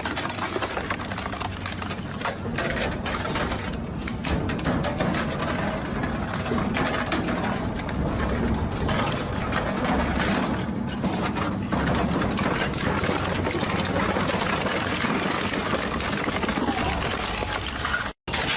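Industrial shredder grinding material, a continuous dense crunching and crackling of many small snaps over the steady low drone of the machine. It breaks off abruptly near the end.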